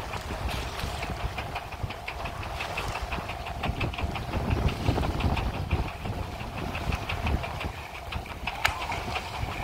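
A boat's engine running with a steady, rapid ticking, about six ticks a second, under wind buffeting the microphone. A short sharp sound comes near the end.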